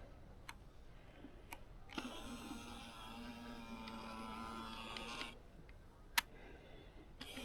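Nikon P950's lens zoom motor whirring steadily for about three seconds, starting again near the end, with a few sharp clicks around it.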